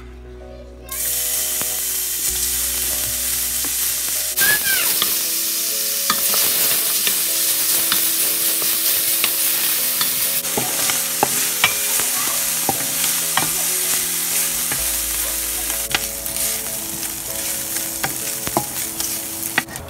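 Diced bacon sizzling as it hits a hot stainless steel pot about a second in, then frying steadily while a wooden spoon stirs it, with scattered sharp taps of the spoon against the pot.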